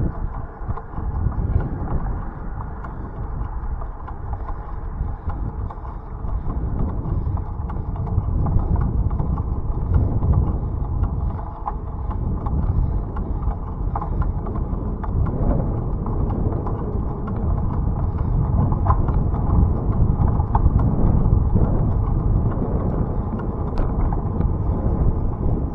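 Steady low rumble of a bicycle rolling along with wind on the microphone, with scattered small clicks and rattles.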